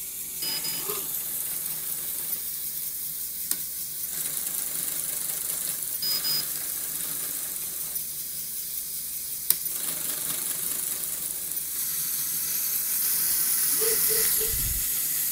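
Motor-driven LEGO loom running, its small electric motors whirring and plastic gears and parts rattling as it weaves. There are a couple of sharp clicks and two short high beeps, and the noise grows louder near the end.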